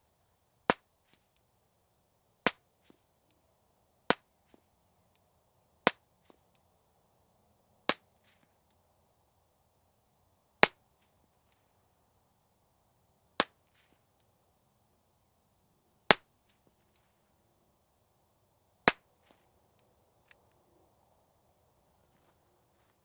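Ruger MK4 .22 pistol fitted with a Bowers Bitty suppressor, run wet, firing CCI subsonic rounds. Nine single suppressed shots come about two to three seconds apart, each followed by a faint tick or two, and the firing stops a few seconds before the end.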